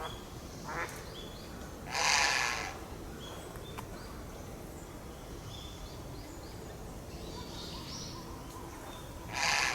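Grey heron giving two harsh, croaking calls, one about two seconds in and another near the end, with small birds chirping faintly in the background.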